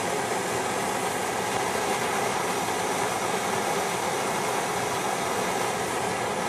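Hand-held gas torch flame hissing steadily while held on a small pile of potassium perchlorate and aluminium flash powder. No bang: the mixture glows under the flame without going off.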